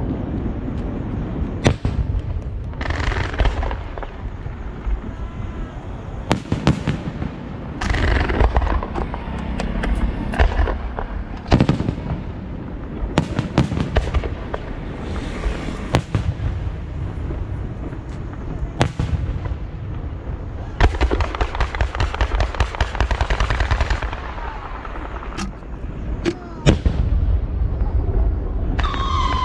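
Fireworks going off in quick succession: a continuous rumble of shell bursts with sharp single bangs every second or two, and two stretches of rapid crackling, about a third of the way in and again past the middle.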